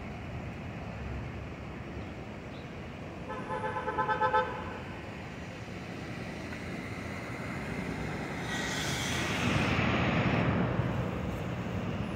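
Elevated subway train, an R142, approaching on steel track. Its running noise builds from about two-thirds of the way in and is loudest near the end. Earlier, a short, rapidly pulsing horn sounds for about a second over steady background traffic noise.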